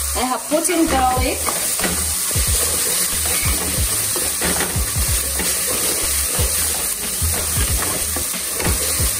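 Chopped onions sizzling in oil in a metal pot, stirred with a wooden spatula: a steady frying hiss with repeated scrapes of the spatula against the pot, about two a second.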